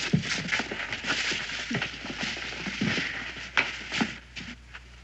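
Several people's footsteps on wooden floorboards: irregular knocks and shuffling with some rustling.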